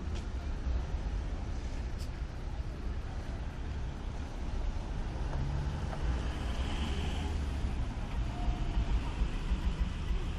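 Steady low engine rumble of vehicles, with a constant background haze of noise.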